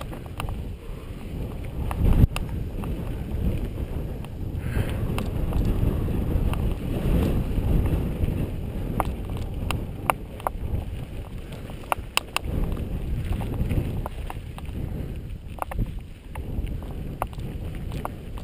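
Wind rumbling on the microphone of a mountain bike riding down a dirt singletrack, with frequent clicks and rattles from the bike over rough ground and a sharp knock about two seconds in.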